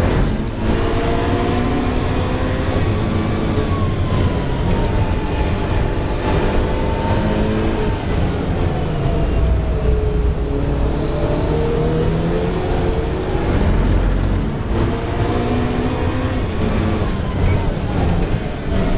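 Ferrari 488 Challenge race car's twin-turbo V8 at racing speed, its pitch climbing under acceleration and dropping back again and again through gear changes and braking.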